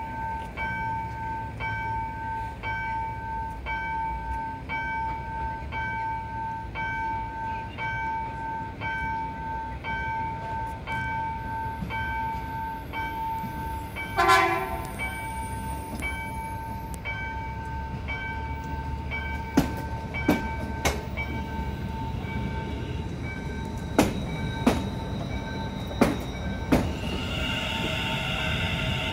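Electronic level-crossing bell dinging steadily about twice a second. About halfway through, an approaching electric commuter train sounds one short horn blast. It then passes close by with sharp wheel clacks over the rail joints and a high wheel squeal near the end.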